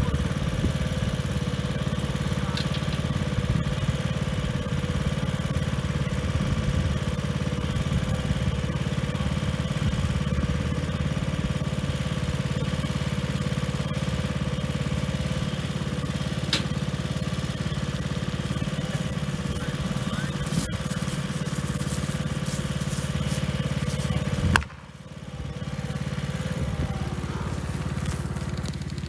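Riding lawn mower's engine running steadily. Near the end the sound drops suddenly and goes on more quietly.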